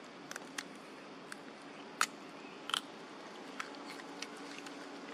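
A young macaque biting and chewing a piece of sweet potato: about seven short sharp clicks at irregular intervals over a faint steady hum. The loudest clicks come about two seconds in and just before three seconds.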